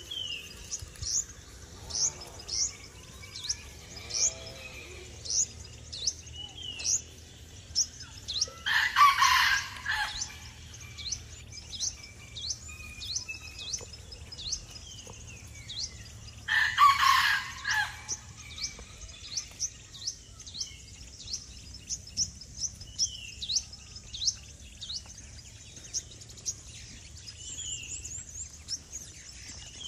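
A rooster crowing twice, loud, about nine and seventeen seconds in, over a bird's short, high, falling chirps repeating about once a second.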